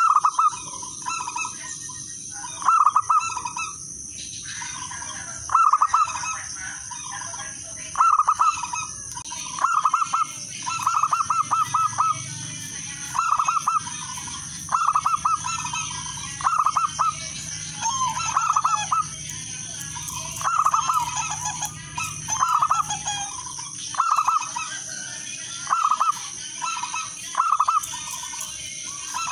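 Zebra dove (perkutut) cooing: a long run of short, rapidly trilled coo phrases, one every second or two.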